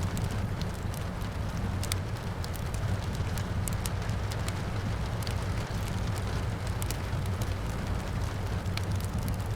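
Wood fire crackling, with irregular sharp pops and snaps over a steady low rumble, mixed with the steady hiss of rain falling outside.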